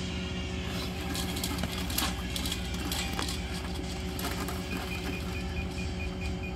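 Electric well water level meter: its probe tape clicks and rattles as it is fed down the well casing, then about five seconds in the meter starts a short high beep repeating about four times a second, the signal that the probe has reached the water. An engine runs steadily underneath.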